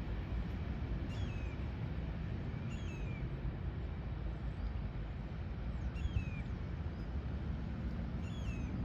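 A bird calling four times, each call a short chirp that rises and then falls in pitch, over a steady low rumble.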